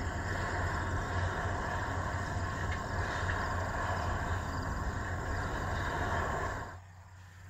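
Steady rumble of the John Deere 9RT track tractor running under load while pulling a chisel plow. The sound drops away abruptly near the end.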